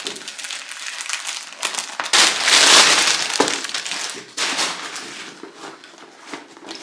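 Thin plastic packaging crinkling and rustling as it is cut open with scissors and pulled off a new handbag, loudest for about a second starting two seconds in.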